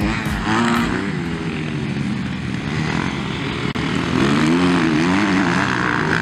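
Motocross bike engines revving as the bikes pass on the track, their pitch rising and falling again and again as the riders work the throttle.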